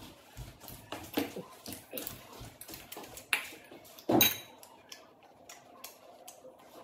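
A woman's short, breathy puffs and sniffs while eating, several at uneven intervals, the loudest about four seconds in.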